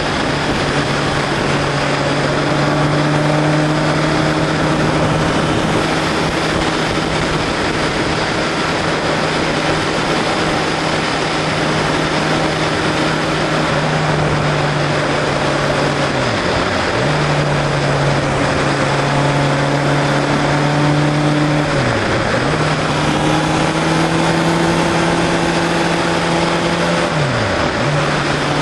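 Motorcycle engine running at a steady pitch while riding, over a constant rush of wind and road noise. In the second half the engine note drops sharply and recovers three times, each dip lasting under a second.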